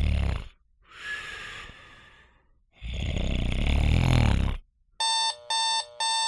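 A person snoring: two loud snores with a softer breath out between them. An electronic alarm clock starts beeping about five seconds in, about two beeps a second.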